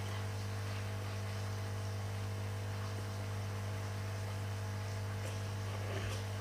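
Steady low electrical hum with a faint background hiss, unchanging throughout.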